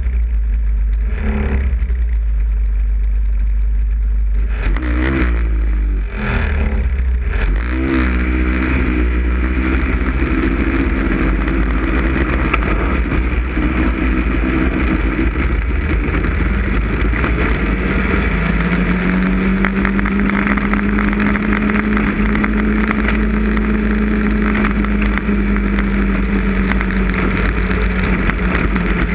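Snowmobile engine running at speed, heard from the sled itself with a heavy wind rumble on the microphone. Its pitch rises and falls over the first several seconds, then climbs and holds steady for the second half.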